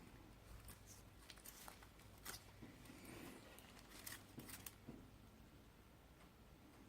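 Faint, scattered light clicks and scrapes of a feeler gauge set being handled and its blades worked in at the cylinder head, over a low steady hum; the clicks stop about five seconds in.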